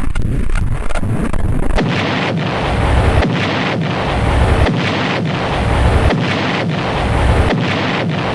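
Battle sound effects: a rapid run of gunshots, then from about two seconds in a rumbling explosion noise that swells and repeats about once a second.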